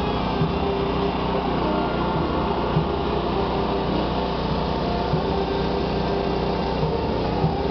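Steady drone of a small engine running continuously, with soft low thumps about every two and a half seconds.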